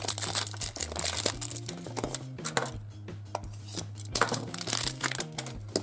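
Printed plastic film wrapper being torn and peeled off a plastic surprise capsule ball, with a run of crinkling and crackling. Quiet background music with a steady bass line plays underneath.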